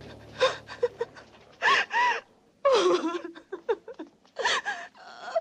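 A woman crying hard: wailing sobs that swoop up and down in pitch, broken by gasping breaths.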